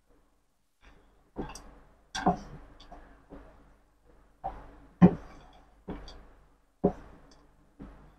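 Metal spatula stirring and tossing rice vermicelli in a non-stick pan, scraping and knocking against the pan about ten times at an uneven pace, each stroke sharp at the start and trailing off.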